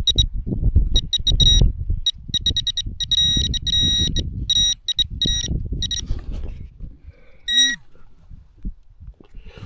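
Metal detector beeping in quick clusters of short, high beeps and then one longer beep near the end, signalling a metal target in the ground. Rustling and knocks from handling sit underneath.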